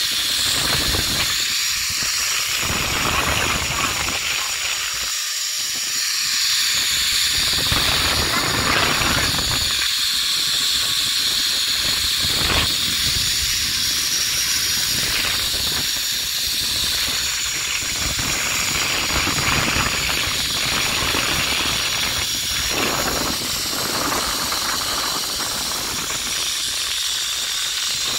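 Zipline trolley pulleys running along the steel cable, a steady high hiss, with wind gusting against the microphone underneath.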